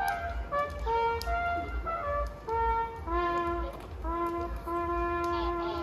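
Brass band playing a slow tune in held notes, over a low pulsing rumble.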